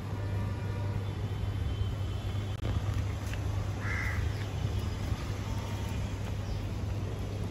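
Steady low hum, with one short animal call about four seconds in.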